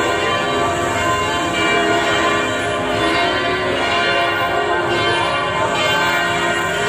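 Church bells pealing continuously, many bell tones ringing over one another without a break.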